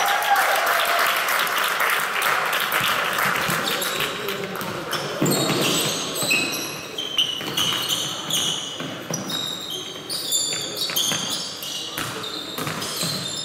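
Basketball game on court: a ball bouncing and voices calling in the hall, with many short high squeaks of sneakers from about five seconds in.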